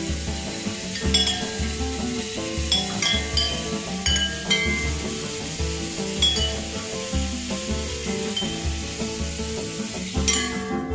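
Water rushing in a tub with a steady hiss, with short high clinks of floating porcelain bowls touching one another, over background music with a steady beat. The hiss stops abruptly near the end.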